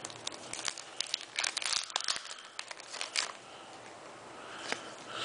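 Foil booster-pack wrapper crinkling and tearing as it is opened and the cards are pulled out: a dense run of sharp crackles over the first three seconds, then a single click near the end.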